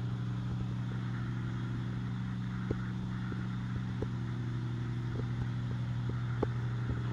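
Shop air compressor running with a steady low hum, with a few faint clicks over it.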